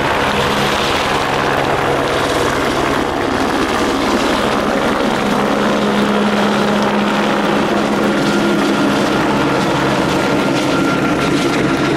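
Helicopter lifting off and climbing away overhead, its rotor and engine running steadily.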